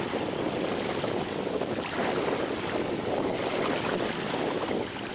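Steady wind buffeting the microphone over a rush of water, aboard a moving boat.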